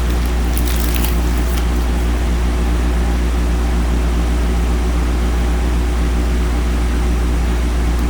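A steady low hum, level throughout, with a few short rustles of handled cards in the first second or so.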